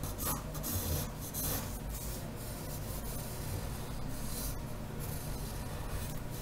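Pencil lead scratching across paper in repeated strokes, several quick strokes in the first couple of seconds and then steadier shading, going over the cylinder's outline to darken the visible contour.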